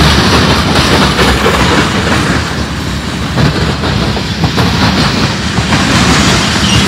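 Freight train cars rolling past close by: a loud, steady rumble of steel wheels on the rails, with clicking and clatter as each car's wheel trucks go by.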